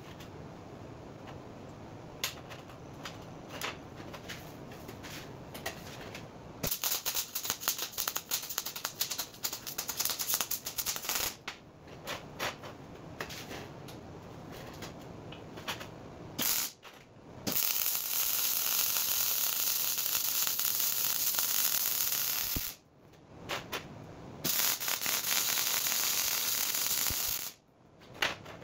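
MIG welding on mild steel brackets: the arc crackles in uneven short bursts at first, then runs two long, steady frying beads of about five and three and a half seconds with a short pause between them.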